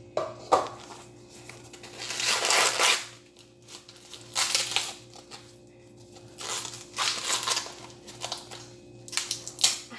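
Sweet corn husks being ripped and pulled off the ear by hand, in several rustling, tearing pulls a couple of seconds apart. A sharp knock comes just after the start.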